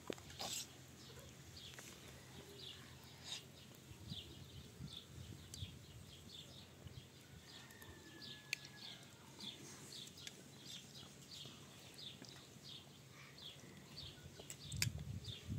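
Faint birds chirping: short, high, falling chirps repeating two to three times a second over a low steady hum, with a louder low rumble starting near the end.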